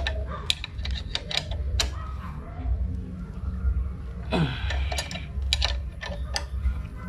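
Scattered sharp metal clicks and clinks of a box-end wrench on the front brake caliper's mounting bolts of a Yamaha NMAX scooter, as the bolts are tightened after a brake pad change. The clicks come irregularly, in one group in the first two seconds and another about four to six and a half seconds in, over a low steady rumble.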